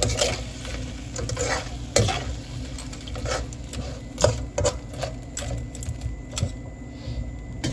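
A metal spatula scraping and clacking against a wok as crab pieces in sauce are stir-fried, with a light sizzle from the hot pan underneath. The strokes come irregularly, the sharpest about two seconds and four seconds in.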